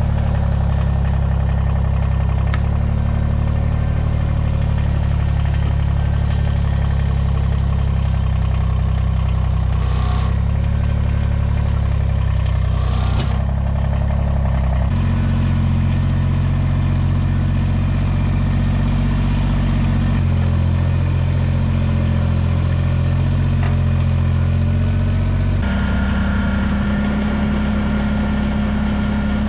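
A vehicle engine running steadily and loudly, its note shifting about halfway through and again near the end.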